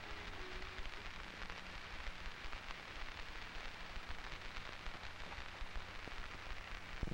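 Hiss and crackle of an old film soundtrack running on after the music has ended, with a low hum beneath. A faint last note of the guitar music dies away within the first second.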